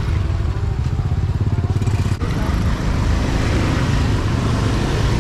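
A motorbike engine running close by, a low steady rumble, with faint voices in the background.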